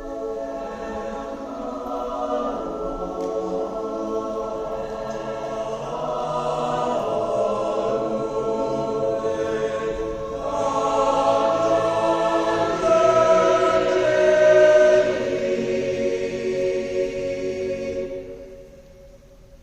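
A choir singing sustained chords, swelling to its loudest a little past the middle and then dying away near the end.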